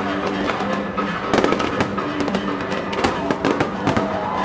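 Aerial fireworks bursting in rapid succession, a dense run of sharp bangs and crackles, with a few whistling pitch glides near the end. Music with held notes plays underneath.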